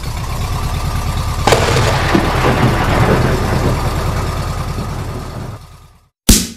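Van engine running with a low pulsing rumble, growing louder about a second and a half in, then fading away. Near the end a single loud sudden boom.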